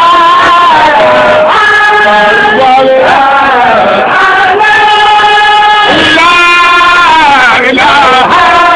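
Voices chanting a Baye Fall Sufi zikr, with long held notes that slide up and down in pitch.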